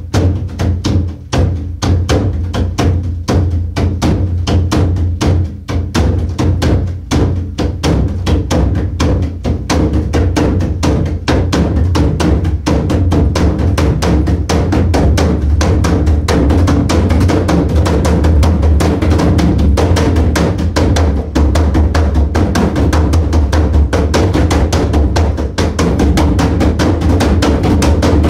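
Giant hand-made log drum, a hollowed-out white pine log about two feet across with a deer-skin head still drying, played with bare hands in a quick, continuous stream of strokes over a deep, steady boom. The strokes grow denser about halfway through.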